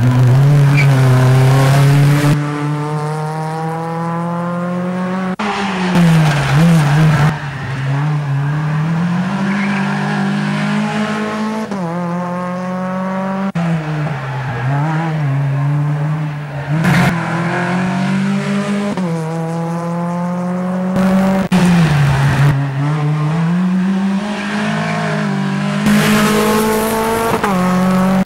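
Hill-climb race car engines in the 1400–3000 cc class revving hard up the course. Each engine's pitch climbs and drops back again and again as the driver shifts through the gears, one car after another.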